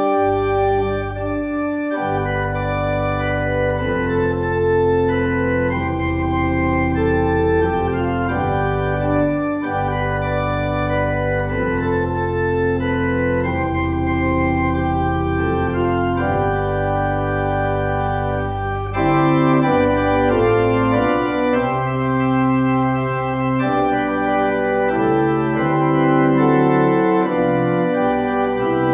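Organ music: slow, sustained chords over held bass notes, the chord changing every second or two.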